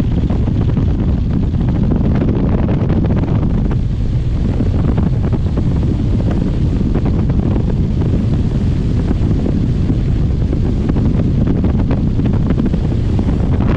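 Heavy wind noise buffeting the microphone as a bass boat runs at speed across the lake, with the outboard and the hull on the water under it, steady throughout.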